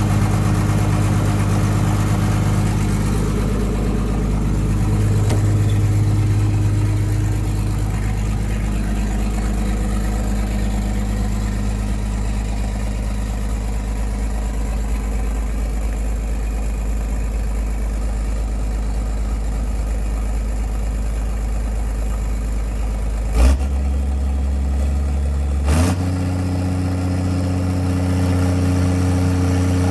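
Kato HD700 excavator's diesel engine running steadily, its note rising and falling a little. Two sharp clicks come near the end, and after each one the engine note changes abruptly.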